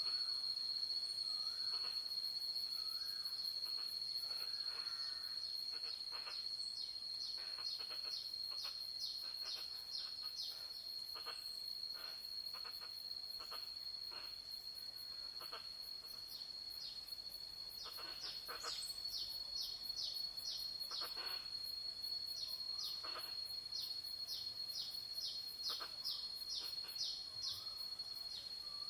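Jungle ambience: a steady, high-pitched insect drone, over which a bird gives three long runs of short calls at about two a second, with a few fainter, lower calls between.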